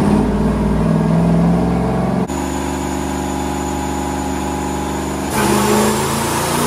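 Twin-turbocharged 5.7 Hemi V8 running on a chassis dyno, its pitch rising over the first two seconds. The sound changes abruptly about two seconds in to a steady engine note, then changes abruptly again, louder and rougher, about five seconds in.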